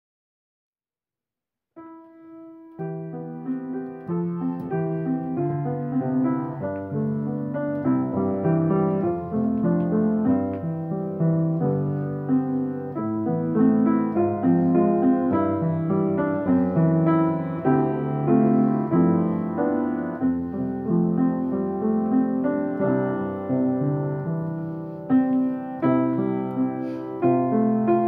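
Solo piano music begins after about two seconds of silence, playing held chords and a moving melody.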